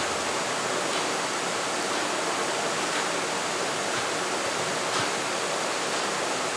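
A steady, even hiss, with a few faint ticks near the middle.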